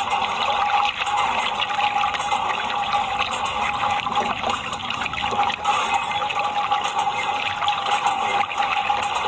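Water running from a garden hose and splashing onto a plastic toy airplane and wet sand, a steady rushing splatter. A steady high hum sounds behind it.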